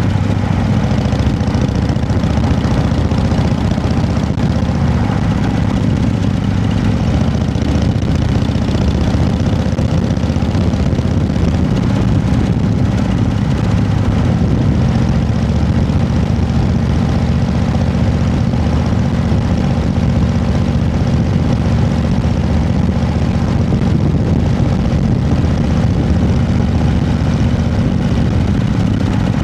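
An engine running steadily at an even speed, with a low, unchanging hum.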